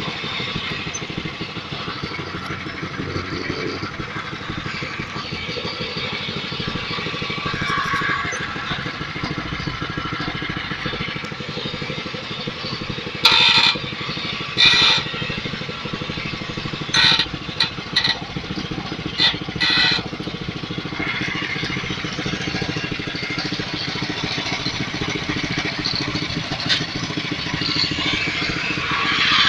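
Small air-cooled motorcycle engine fitted to a homemade scrap-built tractor, running steadily at idle. About halfway through comes a run of short, loud, high-pitched bursts, several in a few seconds.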